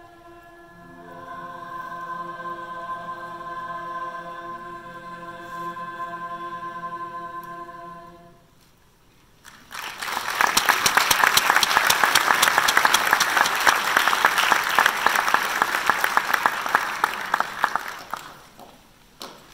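Women's choir holding a final chord, with voices joining about a second in, then cutting off together at about eight seconds. After a brief pause, audience applause for about eight seconds that dies away.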